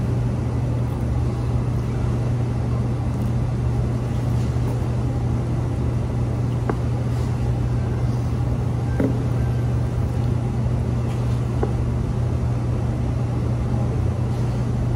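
A steady low machine hum, with a few faint clicks about halfway through.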